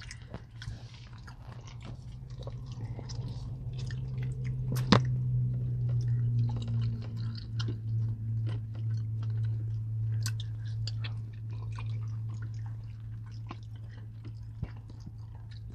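Close-miked chewing and biting of people eating, with many small wet mouth clicks and one sharp click about five seconds in, over a steady low hum.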